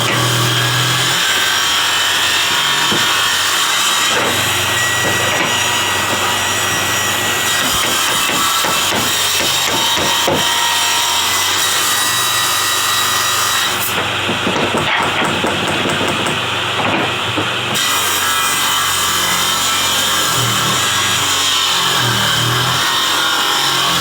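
Wood being sawn, a steady, loud cutting noise throughout; the high end drops away for a few seconds a little past the middle.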